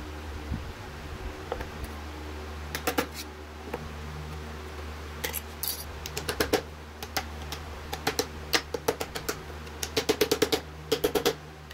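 Thin copper sheet being snipped with tin snips and handled on a steel table: sharp metallic clicks in short clusters, with a quick run of about six a second near the end.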